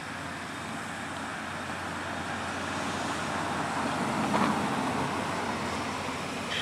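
Standing C58 steam locomotive letting off steam with a steady hiss that swells briefly about four seconds in.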